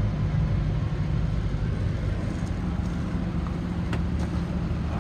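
Hummer H2's 6.0-litre V8 idling steadily, heard from inside the cabin with the air conditioning blowing.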